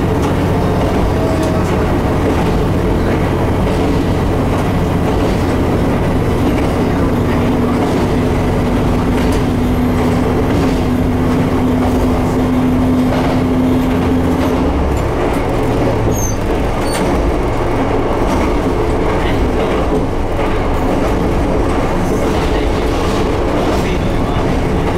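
Diesel railcar running along single track, engine droning steadily with wheels clicking over the rails. The engine note changes about halfway through.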